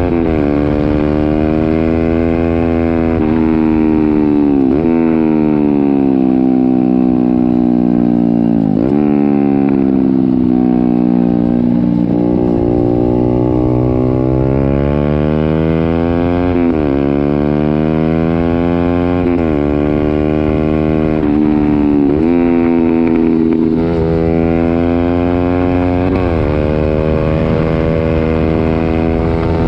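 Honda CB125R's single-cylinder four-stroke engine breathing through a baffle-less IXRACE M9 full exhaust system, pulling up through the gears: the note climbs, drops sharply at each upshift, and climbs again. Near the middle it eases off and falls slowly before building once more.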